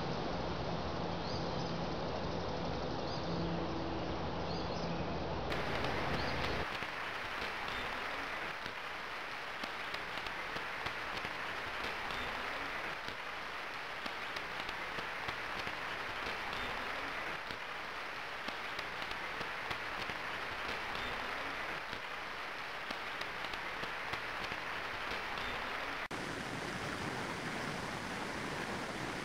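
Steady rainfall: an even hiss of rain with many small drop ticks, starting about six seconds in when the sound changes from a duller outdoor recording with faint high chirps and a low hum.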